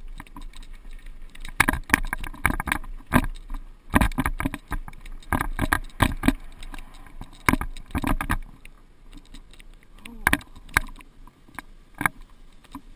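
Mountain bike clattering over a rough dirt trail: irregular clusters of knocks and rattles, thickest from about a second and a half to eight seconds in, then a few sharp knocks near the end.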